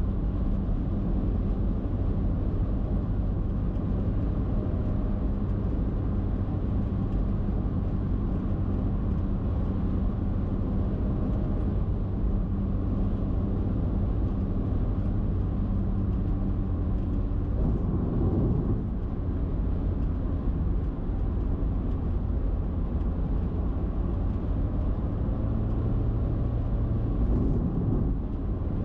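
Steady road noise of a car cruising on an expressway: tyre and wind noise with a low, even drone, and brief swells about two thirds of the way in and again near the end.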